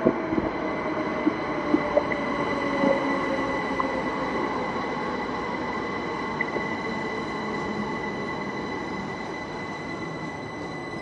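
Heathrow Express electric train pulling into the platform and slowing: a steady rumble with a high whine, and lower whining tones that slide down in pitch during the first few seconds as it brakes. A few sharp clicks sound in the first three seconds, and the sound eases slightly toward the end.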